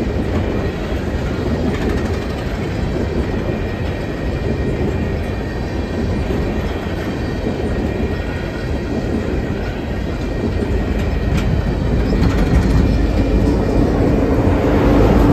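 Freight train of coal hopper cars rolling past, steel wheels clattering over the rails. Over the last few seconds the sound grows louder as a BNSF diesel locomotive at the rear of the train passes, its engine adding a steady low hum.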